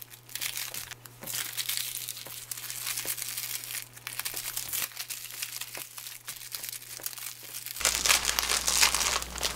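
Thin plastic film wrapper of a triangle kimbap crinkling as hands fold it around the rice and seal it with a sticker label: a continuous rustle with small clicks, louder near the end.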